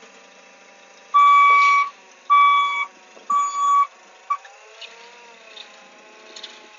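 Forklift warning beeper sounding three loud single-pitched beeps about a second apart, then a short fourth blip, over the forklift's engine running; after the beeps the engine's pitch rises and falls.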